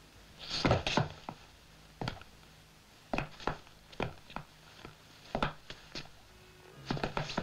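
Footsteps on a flight of outdoor steps: a man climbing and then walking back down, as a string of hard, irregular steps about one to three a second.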